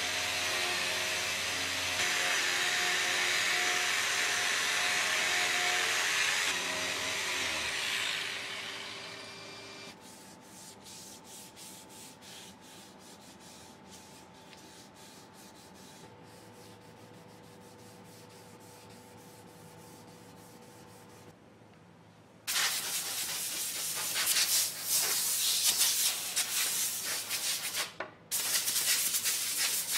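Electric reciprocating sander running against a wooden frame for the final 180-grit sanding, fading out about a third of the way in. Then faint rubbing strokes of hand sanding with 240-grit paper. From about three-quarters of the way in, a compressed-air blow gun hisses loudly in long blasts, with a brief gap near the end.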